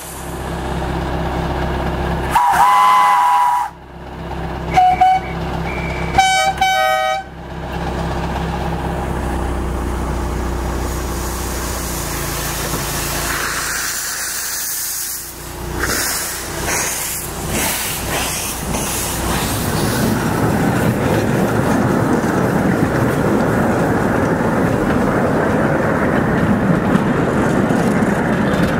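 Narrow-gauge steam locomotives whistling: a whistle of about a second, a short toot, then another whistle of about a second, over steady steam hiss. The double-headed train then pulls away, its running noise growing loudest near the end as the carriages roll past.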